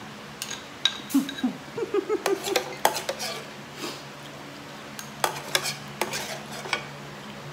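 Cutlery clinking and scraping against bowls and dishes during a meal, in irregular clusters of sharp clinks.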